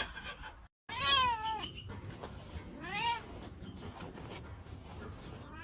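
Domestic cat meowing: two short meows, the first about a second in and the second about two seconds later, each rising then falling in pitch.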